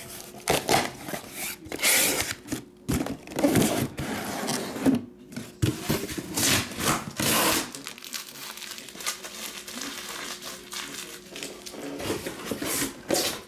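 Cardboard shipping case and shrink-wrapped boxes being handled: a quick run of scraping, tearing and crinkling of cardboard and plastic wrap, thinning out to occasional quieter rustles after about eight seconds.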